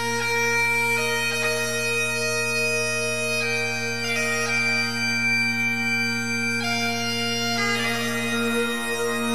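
Background music: a steady held drone under a slow melody that changes note every second or so.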